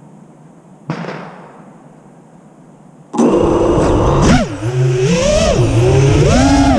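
FPV racing quadcopter's brushless motors spinning up suddenly about three seconds in for takeoff, a loud whine that rises and falls in pitch with the throttle. Before that, a low hiss and one short knock about a second in.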